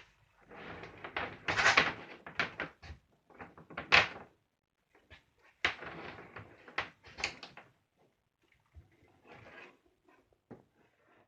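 Irregular handling knocks, clicks and rustles of stripped copper wire and the stripping tool being moved about, with the loudest knocks about 2 and 4 seconds in.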